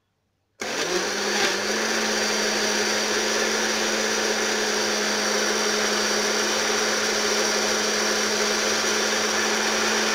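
Countertop electric blender switching on about half a second in, its motor rising in pitch over the first second and then running loud and steady as it purées chunks of watermelon, melon and apple with milk.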